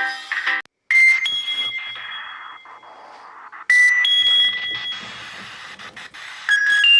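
Nokia 6300 ringtone: a two-note electronic chime, a lower tone jumping at once to a higher one that rings out and fades, repeated three times about every three seconds, the third pitched a little lower. In the first half-second the previous tone's quick melody ends.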